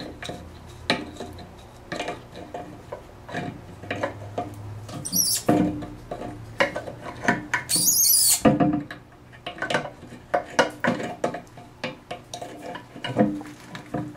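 Steel adjustable wrench clicking and knocking against the hex nut of a toilet tank's water supply connection as it is loosened, with irregular metal-on-metal clinks. Three brief, harsh high-pitched sounds stand out, about five seconds in, eight seconds in and near the end.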